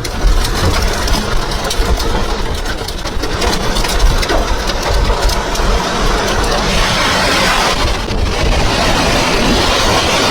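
Strong tornado wind rushing and buffeting the microphone: a loud, steady rumble with a hiss over it that grows brighter in the second half.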